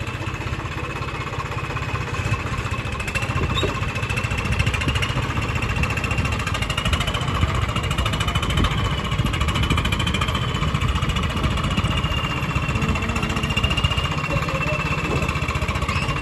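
Swaraj 855 FE tractor's three-cylinder diesel engine running with a rapid, steady pulsing beat as the tractor creeps forward, with a thin, wavering high whine over it.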